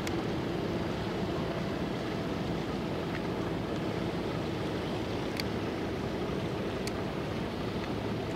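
A steady wash of wind and sea with a faint, even low drone from the passing training ship Yuge Maru's engines. A couple of faint ticks come in the second half.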